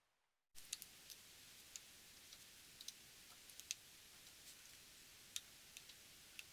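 Faint, irregular small clicks and taps over a steady low hiss, beginning after a brief silent moment about half a second in.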